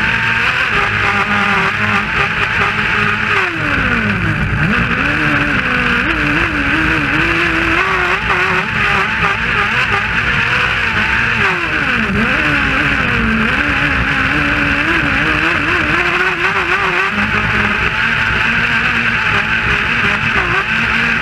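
Kart cross's 600 cc motorcycle engine racing at high revs, heard onboard. Its note falls steeply twice, about four and twelve seconds in, then climbs and wavers again as it pulls, over a steady hiss.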